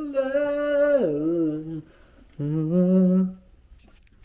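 A man singing long held notes into a handheld karaoke microphone. The pitch drops about a second in, then after a short break comes one last held note that rises slightly and ends a little past three seconds.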